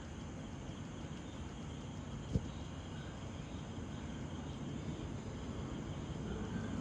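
Distant rumble of an Airbus A320's jet engines, building slowly as it begins its take-off run, with insects chirping in the background. A single sharp click about two and a half seconds in.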